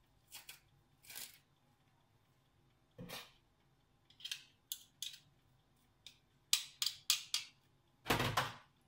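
Metal garlic press clicking and knocking as a garlic clove is squeezed through it: a run of short sharp clicks, with a heavier knock about three seconds in and a louder one near the end.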